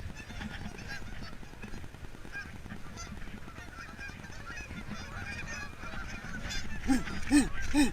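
A flock of Canada geese honking: many faint calls throughout, with several louder, nearer honks near the end.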